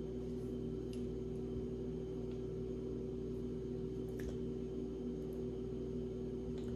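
Steady low electrical hum made of a few held tones, with four faint light clicks of jewelry being handled.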